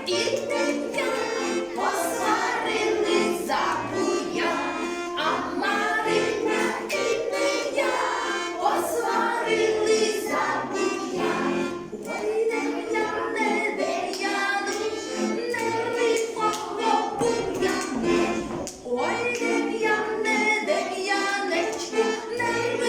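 A Ukrainian folk dance song sung by a group of voices, including children's voices, with a steady rhythmic beat.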